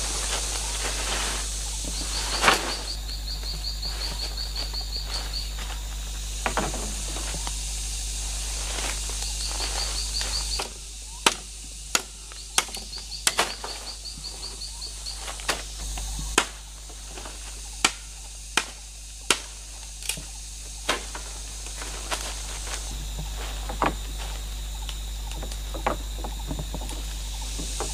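Forest ambience: a steady high insect drone, with a rapid chirping trill that comes and goes. Through the middle come about a dozen sharp knocks from wooden poles being cut and worked by hand.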